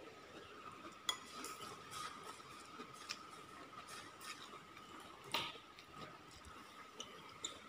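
Metal spoon clinking and scraping against a ceramic bowl of rice, a handful of separate sharp clinks with the loudest about five seconds in, over a faint steady high hum.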